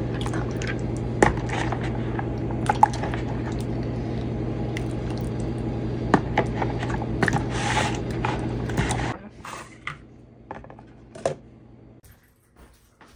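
Cutlery clinking and scraping against a dish, with wet squishy food sounds, over a steady low hum that cuts off about nine seconds in.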